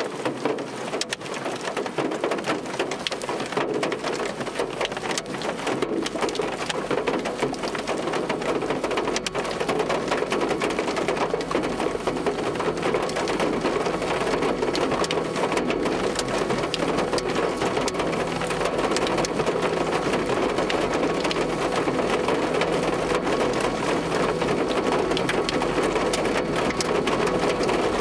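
Hailstorm: hailstones pelting down in a dense, steady clatter of countless small impacts, much like very heavy rain. It grows a little heavier over the first ten seconds or so, then holds steady.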